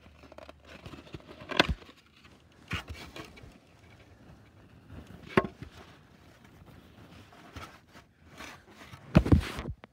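Rubbing and handling noise close to the microphone, with a few sharp knocks and thuds: one about a second and a half in, another near three seconds, one in the middle and a louder double thud near the end.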